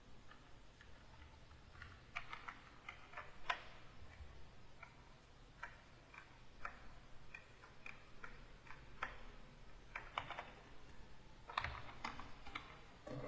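Faint, irregular clicks of computer keys, pressed one at a time and in short runs of a few.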